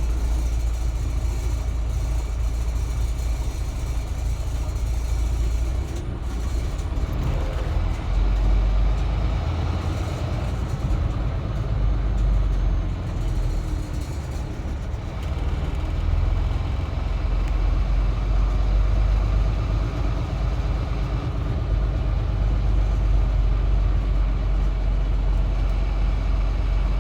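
Steady low rumble of a semi truck's diesel engine and road noise heard inside the cab while it creeps along in slow traffic.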